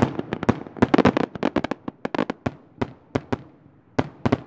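Aerial fireworks bursting overhead: a rapid, irregular string of sharp bangs and cracks, dense through the first couple of seconds and then thinning to scattered single reports.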